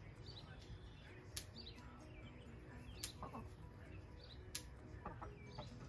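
Quiet farmyard sound: faint chirping birds and soft sounds from a flock of hens, with a sharp faint click about every second and a half.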